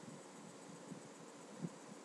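Quiet room tone: a steady faint hiss with a few soft, low knocks scattered through it.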